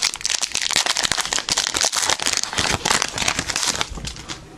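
Foil wrapper of a Yu-Gi-Oh booster pack crinkling and crackling as it is torn open and handled, dying down near the end.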